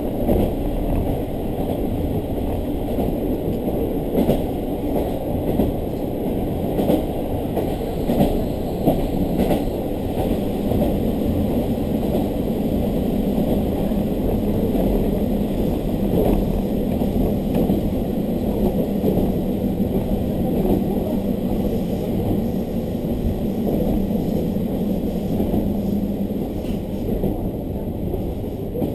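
Diesel railcar running at speed, heard from inside the passenger cabin: a steady low rumble of engine and wheels on rail, with a few sharp knocks in the first half. A steady engine hum comes in about ten seconds in and fades near the end.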